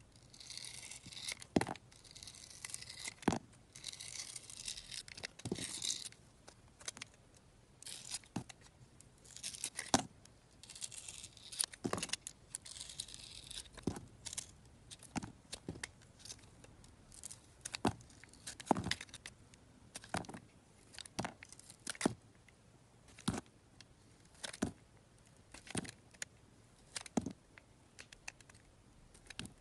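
Snap-off utility knife cutting into a bar of soap: crisp cracks every second or so as slices come away, with stretches of scraping in the first half.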